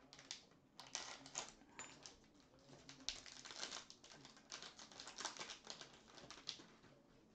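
Faint crinkling and crackling of a baseball card pack's wrapper as it is torn open and the cards are pulled out, in short irregular bursts that thin out near the end.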